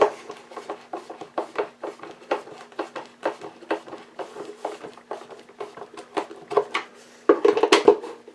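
Screws being tightened into a vacuum cleaner's base plate with a screwdriver: irregular light clicks and small knocks, busier near the end.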